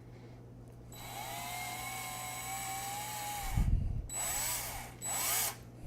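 Power drill with a 3.5 mm bit boring into an iPhone 7's body: a steady whine for about two and a half seconds that ends in a low thump, then two short bursts of drilling.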